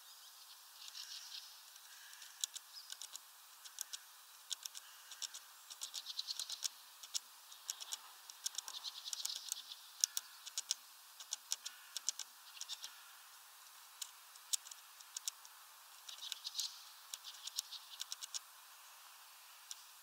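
Great tit pecking at the feeder: a run of sharp, irregular taps and clicks, bunched in quick clusters, with short scratchy rustles between them.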